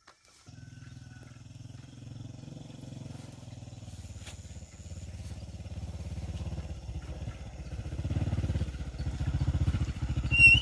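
Small step-through motorbike engine running as it rides up a dirt track, its pulsing note growing steadily louder as it approaches.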